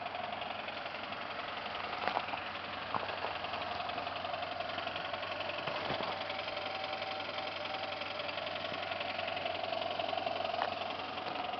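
1995 Ford Taurus SHO V6 running steadily with a knock from spun crankshaft bearings, a semi-blown engine, with a few sharper clicks.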